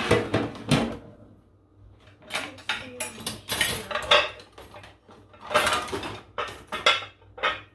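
Metal cutlery and dishes clattering and knocking as kitchen utensils are handled, in several short bursts.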